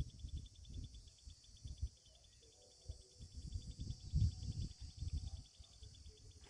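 Insects chirring steadily outdoors in a rapid, even pulse, with irregular low rumbling on the microphone underneath.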